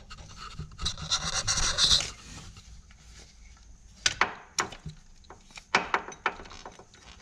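Hand work on a car's belt tensioner and its mounting from underneath: about a second of rubbing and scraping of parts, then a few sharp clicks and taps of metal and plastic being handled.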